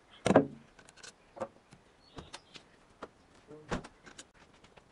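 A few irregular, short metallic clinks and knocks of hand tools and engine parts being handled on a bare cylinder head, the loudest about a third of a second in, with a brief ring.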